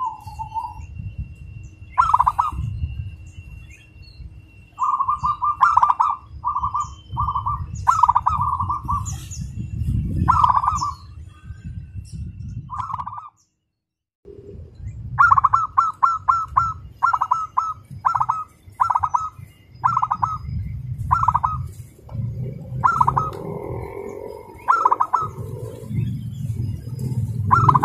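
Zebra dove (perkutut) cooing: repeated phrases of quick, tightly packed notes, the fast 'speed rapat' delivery likened to a sewing machine. The song stops briefly about halfway through.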